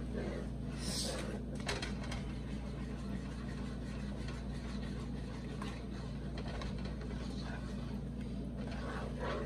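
A plastic slotted spatula stirring and scraping a thick cream sauce in a metal pot, with soft scrapes and a few light taps, over a steady low hum.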